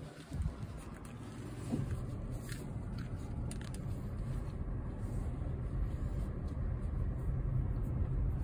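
A car driving, with a steady low rumble.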